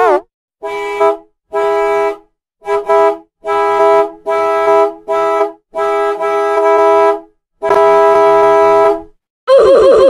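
Volvo bus air horn sounding a steady multi-note chord, slowed down, in a string of about nine honks of uneven length; the last is the longest, about a second and a half. Just before the end a new sound starts, a rapid run of falling tones.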